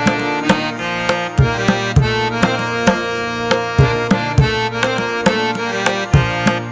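Background music: melodic instruments over a steady hand-drum beat.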